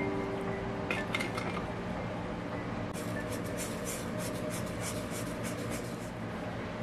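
Kitchenware handled: dishes and cutlery clink and scrape, with a few sharp clicks about a second in and a quick run of clinks in the middle, over a steady low hum. A pitched ring fades out at the start.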